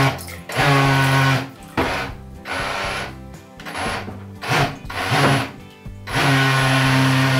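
Electric motor and propeller of a homemade radio-controlled bait boat running in repeated bursts of half a second to a second as the throttle is opened and cut, churning the water it sits in.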